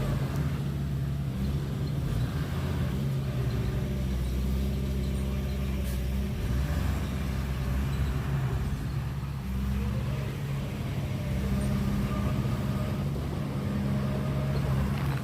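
Heavy diesel engine of earthmoving machinery running steadily with a low, even drone, easing briefly about ten seconds in.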